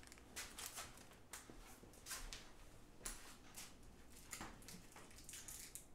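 Faint rustling of a thin clear plastic bag, with light ticks of small parts being handled, in short scattered bursts.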